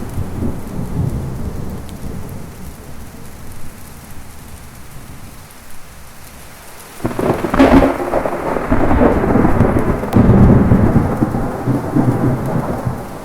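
Thunderstorm with steady heavy rain: a low rumble of thunder dies away, then about seven seconds in a sharp, close thunderclap breaks and rolls on loudly to the end.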